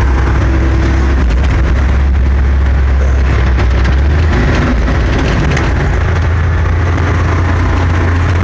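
Mining haul truck's diesel engine running under way, a loud steady low drone heard from inside the cab. The lowest part of the drone changes about four seconds in.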